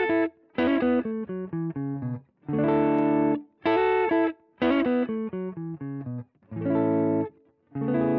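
Electric guitar played through an amplifier, strumming a riff of chords that are cut off sharply, with brief silent gaps between phrases.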